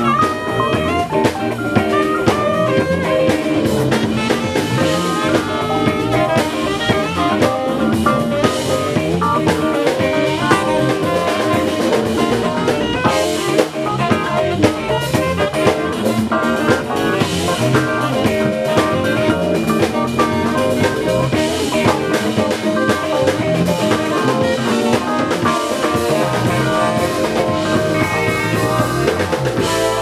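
A band playing an instrumental passage with a drum kit and guitar, steady and loud throughout.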